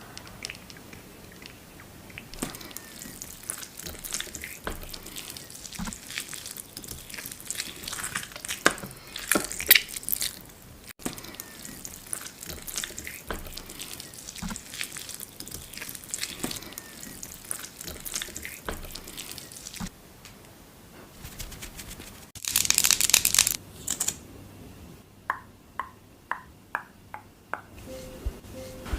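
Close-up handling of makeup products: scattered small clicks, crackles and taps. A short loud hissing burst comes about three-quarters of the way through, then a quick run of about six light taps near the end.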